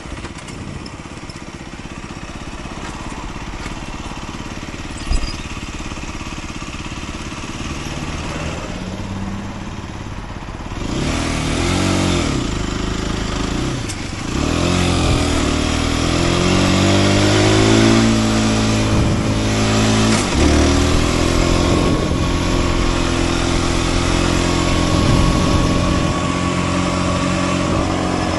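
Aprilia RS 125's single-cylinder four-stroke engine, running low and steady at first, then revving up through the gears from about ten seconds in. Its pitch climbs and dips at each shift, then holds steady at speed, with wind rush rising behind it. A short sharp click about five seconds in.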